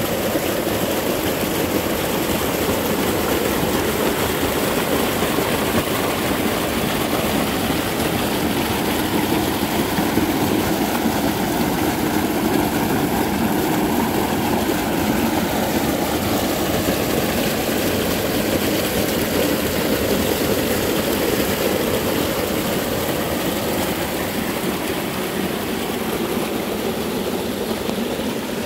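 Creek in spate after rain, its muddy runoff rushing and splashing over rocks close by in a steady, loud rush of water.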